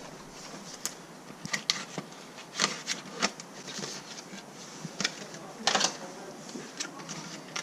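Scattered light clicks and clatter of small hard objects being handled, irregularly spaced over a soft hiss, with a louder cluster a little past halfway.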